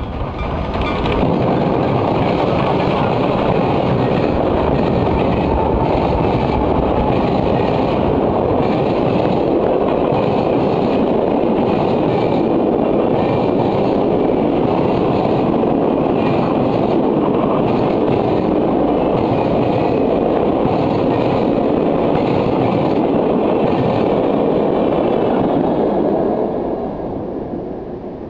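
A steam-hauled passenger train, led by Nickel Plate Road 765, a 1944 2-8-4 Berkshire steam locomotive, passing close by at speed. It makes a loud, steady rush of wheels on rail that fades away over the last two seconds.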